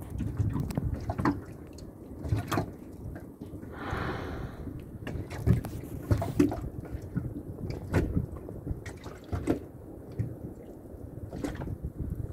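Water lapping and slapping irregularly against the hull of a small boat, with a brief rushing hiss of water about four seconds in.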